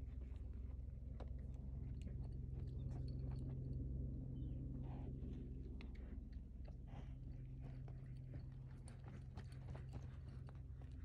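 A horse's hooves striking and scuffing in deep arena sand, heard as scattered crunchy clicks over a steady low hum.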